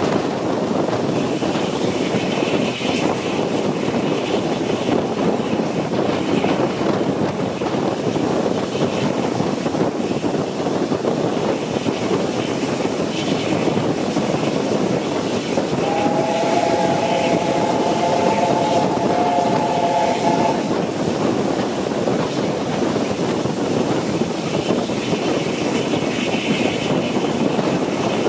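Steam-hauled train running behind LNER A4 locomotive 4464 Bittern: a steady rumble of the coach's wheels on the track with wind noise. About 16 seconds in, the A4's three-note chime whistle sounds for about four and a half seconds.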